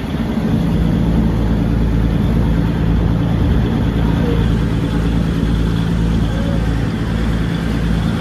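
Diesel train engine running steadily while the train is under way: a deep, even hum over a low rumble, growing louder about half a second in.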